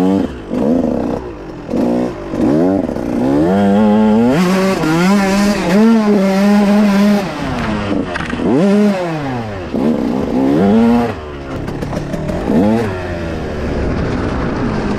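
Dirt bike engine revving while ridden, its pitch climbing and dropping again and again with the throttle.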